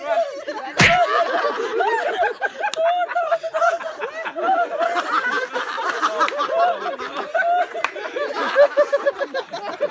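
A group of men laughing and chattering together, many voices overlapping. A single sharp knock about a second in.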